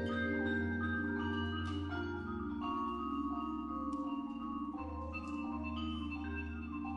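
Percussion ensemble playing: marimbas and vibraphones hold steady chords over a low bass line, with a few light mallet strikes scattered through.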